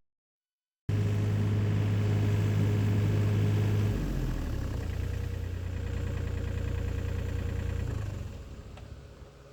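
Engine of a John Deere 35D compact excavator running steadily. It starts abruptly after a second of silence, drops to a lower, quieter note about four seconds in, and fades away near the end.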